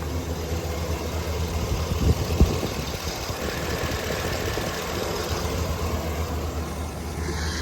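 Chevy Silverado 2500HD's 6.0-litre gas V8 idling steadily, with a couple of light knocks a little over two seconds in.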